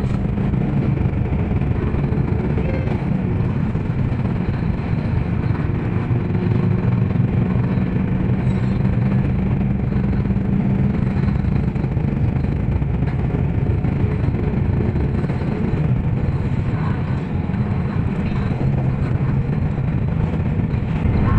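Steady engine and road noise heard from inside a moving vehicle: an even, low hum with no breaks.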